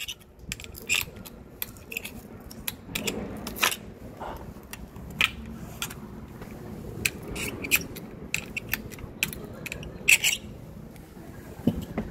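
Scattered sharp clicks and taps from a long-handled litter picker's tongs and a small wheeled trolley moving over pavement, over a steady low rumble.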